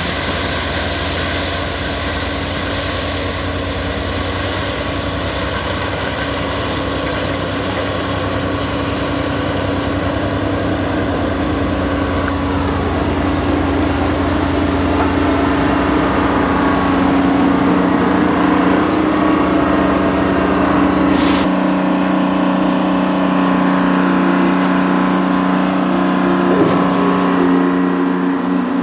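Diesel engines of a Jordan spreader, powered by a Detroit Diesel, and the locomotive pushing it, running steadily under load as the spreader works slowly past, getting louder as it comes close. The deepest rumble drops away about 21 seconds in, with one sharp click at the same moment.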